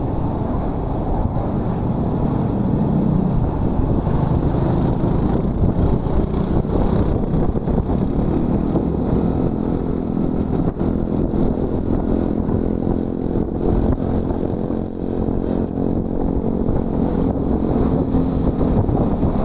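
Motorcycle engine running steadily while riding, mixed with wind rush on the microphone.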